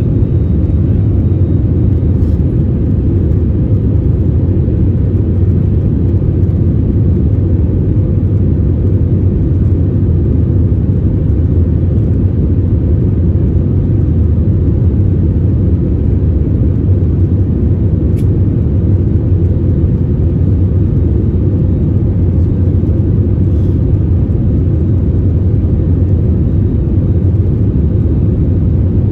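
Steady low rumble of an Airbus A320-family jet airliner's engines and rushing air, heard inside the passenger cabin on final approach with the flaps extended.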